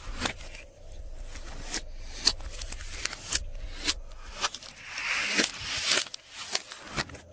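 Glossy slime being mixed and squished, with many sticky clicks and pops and a longer wet crackling squelch about five seconds in.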